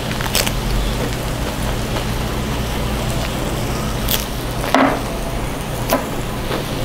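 Thin-sliced pork belly sizzling steadily on a cauldron-lid grill, with a few sharp clicks and smacks of eating over it and one louder one a little before five seconds in.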